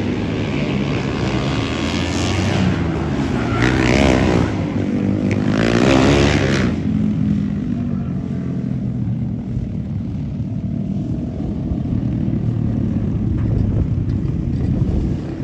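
Engines revving, their pitch rising and falling over the first seven seconds, then settling into a steadier, lower drone.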